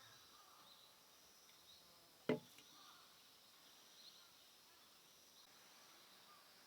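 Near silence with a faint steady high hiss, broken by one short sharp knock about two seconds in.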